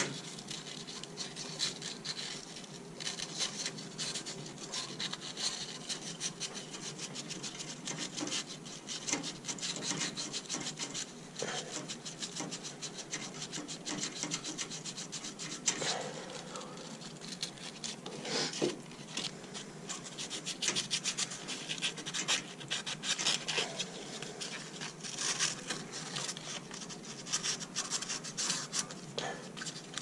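Irregular rubbing, scraping and small clicks of hands working metal parts around the pilot and thermocouple inside a steam boiler's burner compartment.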